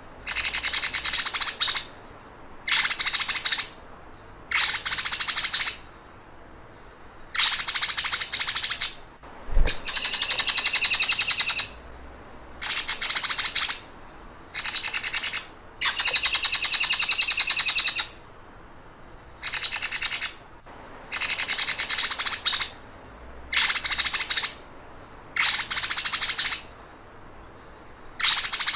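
A songbird giving a fast, rattling trill that sounds like a sewing machine, repeated in bursts of one to two seconds with short pauses between them.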